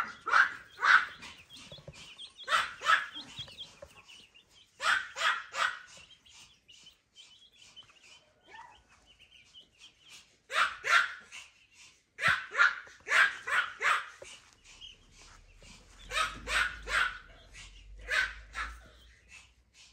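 A dog barking in short runs of two to four barks, every few seconds.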